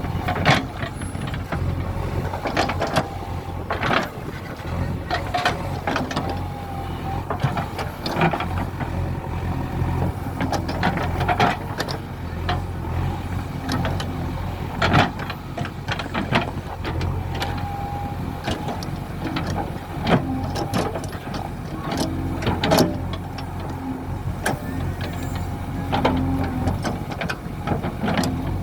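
JCB 3DX backhoe loader's diesel engine running steadily, with frequent sharp clanks and knocks from the backhoe bucket and arm working the soil.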